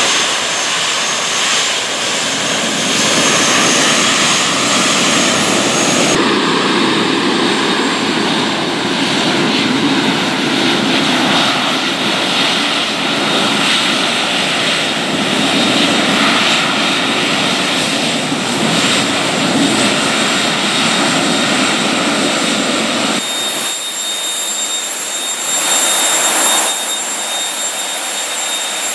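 Orenda OTF-3 aeroderivative industrial gas turbine, burning propane, running steadily on test: a loud, continuous jet roar with a high whine over it. Its tone changes abruptly about six seconds in and again later.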